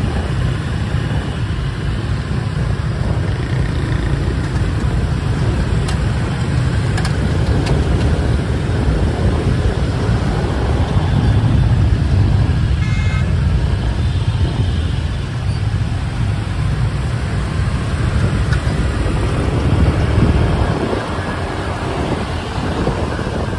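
Dense city traffic of motorbikes and scooters, a steady low engine and road rumble heard from among them while riding. A brief horn beep comes about halfway through.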